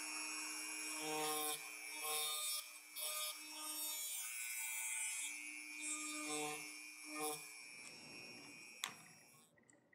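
Small rotary tool with a carbide burr grinding into thin aluminum honeycomb, deepening a recess across the cell walls; the sound comes and goes in uneven passes as the burr bites, then dies away and stops near the end.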